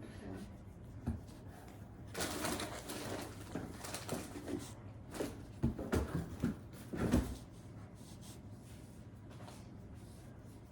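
Rustling and handling of craft materials on a table, with a cluster of sharp clicks and knocks about five to seven seconds in.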